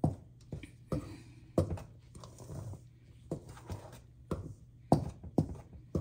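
Flour being mixed by hand in a metal bowl: irregular knocks against the bowl, roughly one or two a second, with soft scraping and rustling of the dry flour between them.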